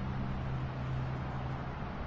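Steady highway traffic noise: a continuous wash of passing vehicles, with a low drone underneath that weakens near the end.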